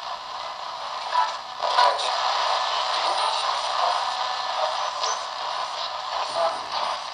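Ghost box: a modified AM radio scanning continuously across the stations, played through a small plug-in speaker, giving a steady choppy hiss of static with little bass.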